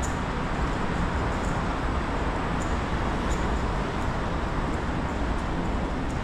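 Steady road-traffic noise and metro-station ambience coming in through an open station exit, with a faint high tick every second or so.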